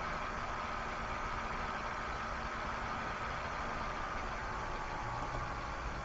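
Steady background hiss with a faint, even hum running under it, the noise floor of an open microphone on a voice-chat stream.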